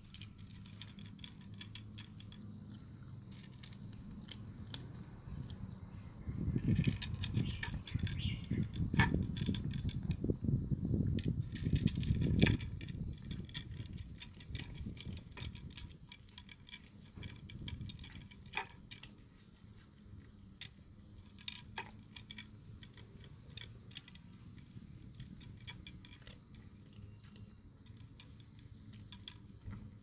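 Large tuxedo cat crunching dry kibble from a plastic plate: a steady run of small sharp crunches and clicks as it chews and noses the pieces around. From about six to twelve seconds in, a louder low rumble comes over it.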